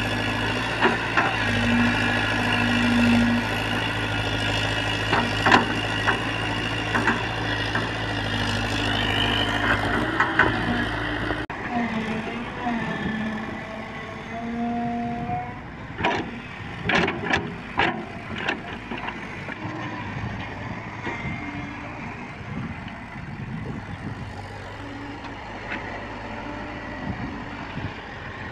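Tracked excavator's diesel engine running under hydraulic load as the machine, stuck in sand with a track thrown off, levers itself with its boom and bucket. The steady engine drone drops away about eleven seconds in, and a cluster of sharp knocks follows a few seconds later.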